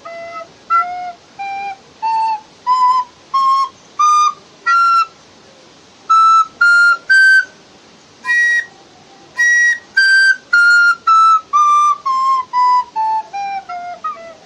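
Recorder (school flauta dulce) playing single notes one after another up the scale and back down: short, separate notes climbing step by step to the highest notes about eight to ten seconds in, then descending. It is a run through the instrument's notes, up to high C and D.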